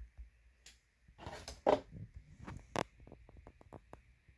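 Handling noise: a brief rustle about a second in, then a couple of sharp taps and a run of faint quick clicks.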